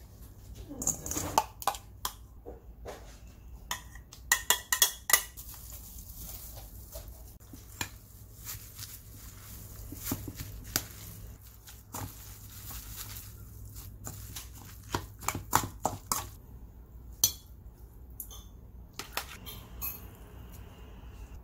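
Metal tongs clinking and scraping against a stainless-steel mixing bowl as cold buckwheat noodles are tossed, in irregular clinks with a quick run of them about four to five seconds in. A low steady hum sits underneath.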